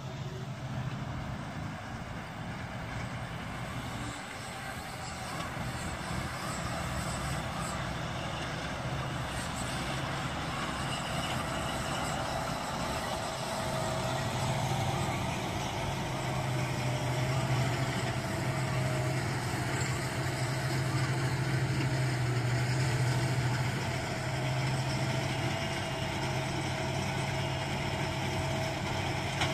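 Fendt 939 tractor's diesel engine running under steady load while it drives a round baler-wrapper through rice straw, with a second loader tractor working alongside. Steady engine drone with a thin mechanical whine joining after about ten seconds.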